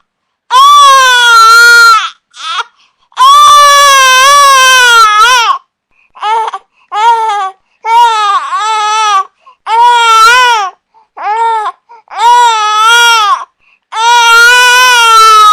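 Infant crying in a series of loud wails, each one to two and a half seconds long, with short pauses for breath between them.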